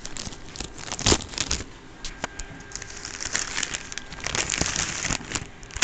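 Clear plastic packaging crinkling and rustling as it is handled, with scattered small clicks and a sharper knock about a second in.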